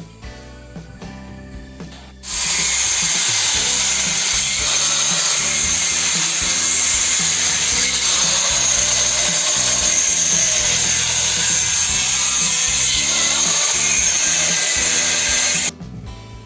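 Handheld angle grinder cutting through the steel bars of a welded mesh panel: a loud, steady, high-pitched grinding that starts abruptly about two seconds in and stops abruptly near the end. Background music plays before and after it.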